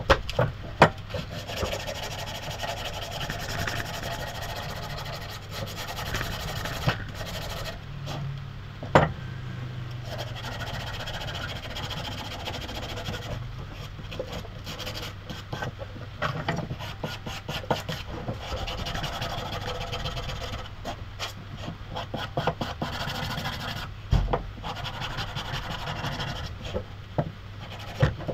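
Rasp scraping over a maple knife handle in repeated strokes, shaping away the excess wood of a full-tang handle, with a few sharp knocks in between.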